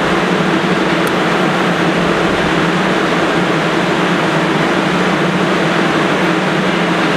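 Steady rumble and hum of an R160 subway train running away down the tunnel, heard from the station platform with a low, even drone.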